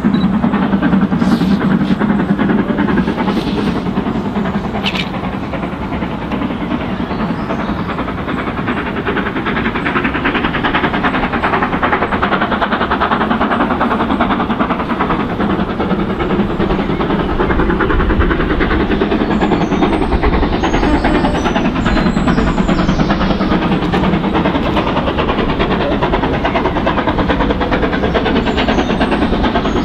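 Two-cylinder BR Britannia Class 4-6-2 steam locomotive No. 70000 'Britannia' working hard up a 1 in 60 bank. Its exhaust beats come loud and steady, with a deeper rumble growing about two-thirds of the way in as the engine draws near. The engine is struggling under a heavy load of 13 coaches with a dead diesel on the back.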